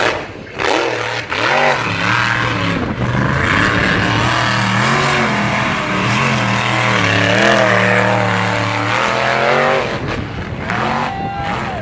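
Mega truck engine revving hard as it charges through the mud pit, its pitch wavering up and down for several seconds, then dropping off about ten seconds in.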